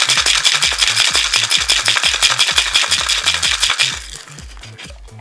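Ice rattling fast inside a metal cocktail shaker being shaken hard, stopping about four seconds in; a sharp knock comes at the very end. Background music with a bass beat runs underneath.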